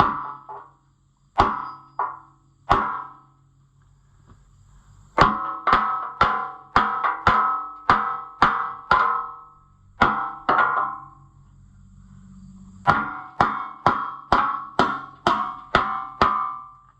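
Hammer blows on the steel parts of a tractor's rear wheel, each one a sharp clang that rings on. A few spaced blows come first, then two long runs of rapid strikes, about three a second, with a short pause between them.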